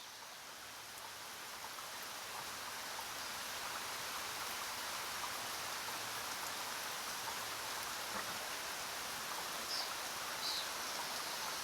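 Steady hiss of rain, fading in over the first few seconds and then holding even, with two brief high chirps near the end.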